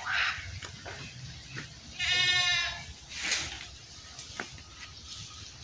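An animal bleating once, a wavering call of under a second about two seconds in, followed about a second later by a brief hissing rustle.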